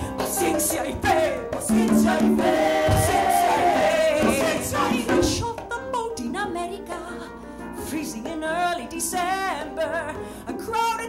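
Live stage performance of a ballad: a band playing while a voice sings long held notes, with wavering vibrato notes in the second half.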